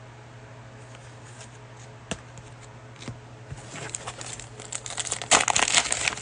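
A few light clicks of trading cards being handled, then, from about three and a half seconds in, the crinkling and tearing of a cellophane-wrapped trading-card pack being ripped open, loudest near the end, over a low steady hum.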